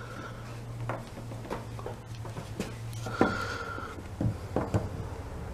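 A few light clicks and taps of handling over a steady low hum, with a brief high tone a little past three seconds.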